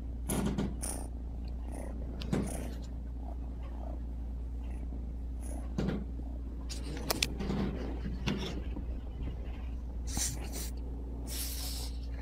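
Ragdoll cat purring steadily right at the microphone. Scattered short rustles and bumps come through as its fur rubs against the phone.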